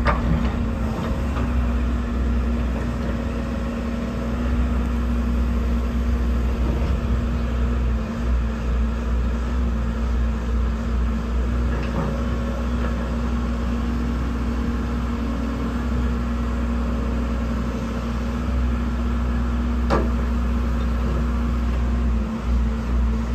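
Komatsu PC130 excavator's diesel engine idling steadily, a constant low rumble with a steady hum.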